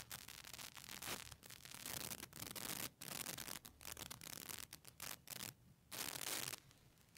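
Irregular rubbing and scratching close to the microphone, in a string of short strokes. The longest stroke ends about six and a half seconds in.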